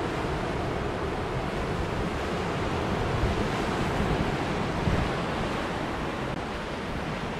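Sea swell surging and washing against a sandstone rock ledge, a steady rush that swells a little around the middle, with wind on the microphone.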